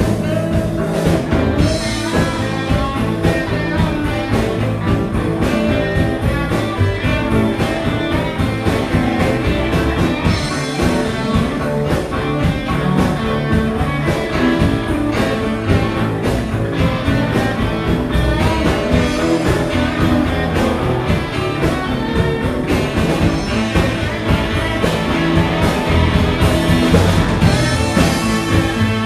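Live blues band playing: electric guitar, saxophone, a second guitar or bass, and drums keeping a steady beat.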